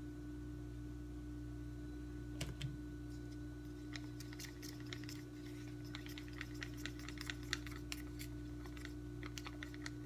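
Stirring stick clicking and scraping against a small plastic cup while mixing thinned acrylic paint, a fast irregular run of light clicks beginning a couple of seconds in. A steady low hum runs underneath.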